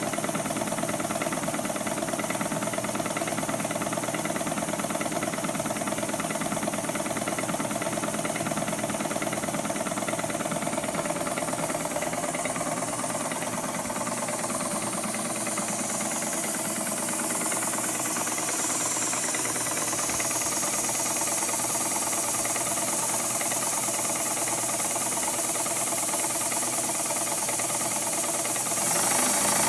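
Sears Kenmore sewing machine running continuously during a burn-in, its motor and needle mechanism making a steady rapid mechanical chatter. It grows louder and brighter about two-thirds of the way through.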